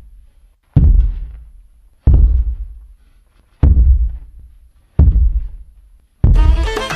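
Heavy booming footstep sound effect of a giant walking: a deep thud about every second and a half, each dying away, five in all. Near the end, folk-style music with a fiddle comes in.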